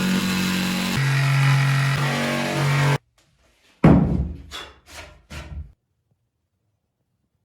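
Background music that cuts off suddenly about three seconds in. After a short pause comes a heavy knock, then four lighter knocks over the next second and a half, like hard strikes on wood or board.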